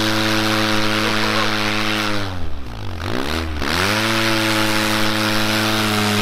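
Snowmobile engine running at high, steady revs under a steady hiss. About two and a half seconds in, the revs drop sharply twice in quick succession, then climb back to their earlier pitch.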